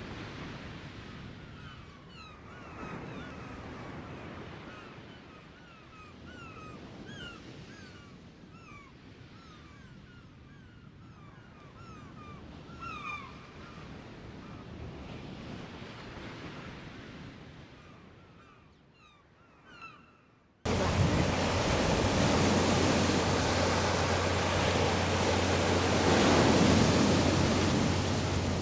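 Sea waves washing ashore, the rush swelling and ebbing, with birds giving many short falling calls over it. About twenty seconds in it cuts abruptly to a much louder, steady rushing noise with a low hum under it.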